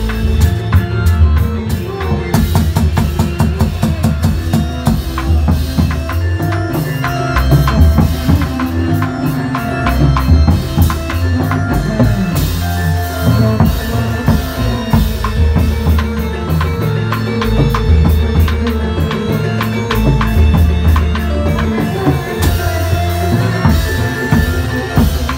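Live Reog Indramayu band music: a fast, driving drum rhythm on bass drum, snare and cymbals over a held melodic line.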